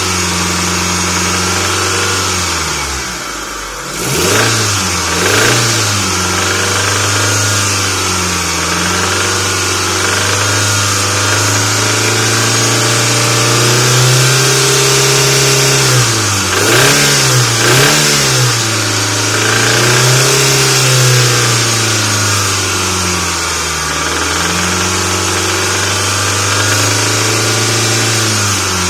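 Mitsubishi 4G64 MPI 2.4-litre inline-four running, revved up and down several times: two quick blips a few seconds in, a slow swell around the middle, then three quick blips in a row. It has a drumming knock whose cause the owner cannot pin down.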